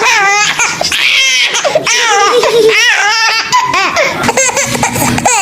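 Baby laughing hard in quick repeated bursts of high-pitched giggles, set off by an adult's playful "I'm gonna get you".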